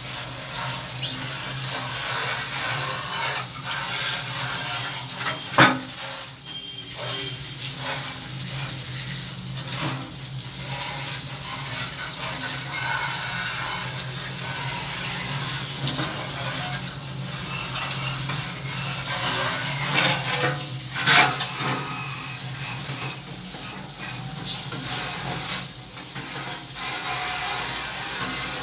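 Water running steadily, with two short sharp knocks, one about 6 seconds in and one about 21 seconds in.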